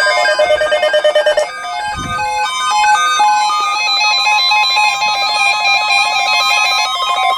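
Instrumental music with a melody of clear, held notes; the music changes about a second and a half in.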